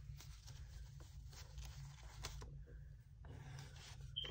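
Faint rustling and flicking of paper banknotes being handled, a stack of cash taken in and out of a clear plastic envelope, in short scattered strokes.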